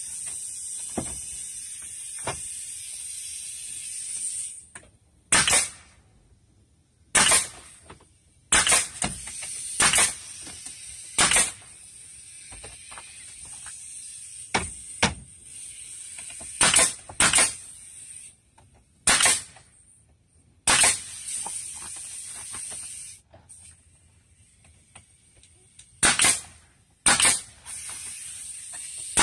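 Pneumatic nail gun firing about a dozen single shots, each a sharp crack with a quick puff of exhaust air, driving nails through PVC brick molding into the door jamb. A steady hiss of escaping air runs between shots near the start and again near the end.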